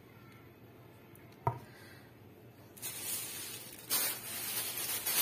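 Plastic cling film rustling and crinkling as it is pulled off and spread over a loaf pan of shaped bread dough to cover it for its rise. It starts about halfway through and gets louder near the end, after a single short knock.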